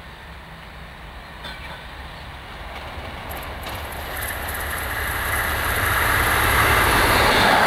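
Class 37 diesel locomotive, with its English Electric V12 engine, approaching at the head of a passenger train: a low engine rumble that grows steadily louder, joined from about four seconds in by rising wheel-on-rail noise.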